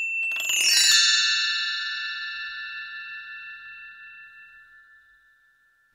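Logo-sting chime: a high ding, then a bright cluster of bell-like tones struck about half a second in that ring on and die away slowly over about five seconds.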